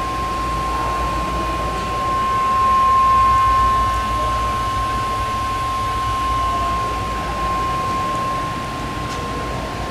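Haas Mini Lathe CNC turning center running: a steady machine whine with a low hum and noise underneath. A cluster of higher whining tones comes in about two seconds in and fades out about seven seconds in, with the sound swelling briefly around three seconds in.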